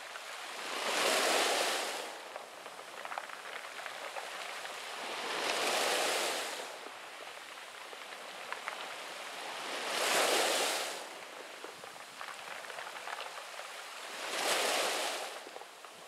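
Small sea waves breaking and washing up a pebble beach, four swells of surf about every four and a half seconds, with a softer steady wash and small clicks between them.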